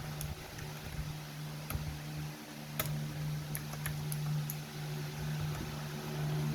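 A handful of sharp, isolated plastic clicks at irregular intervals, the loudest a little before the middle, typical of keycaps being pressed onto clicky blue mechanical switches. A steady low hum runs underneath.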